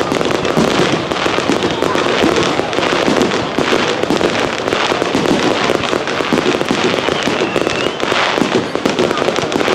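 Fireworks display going off continuously: a dense run of bangs and crackling with no pause.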